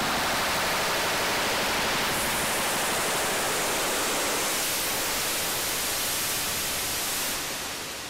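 Dense, grainy hiss of harsh noise from a Mutable Instruments Clouds granular processor running 100% wet, its top end getting brighter about two seconds in; it fades down near the end.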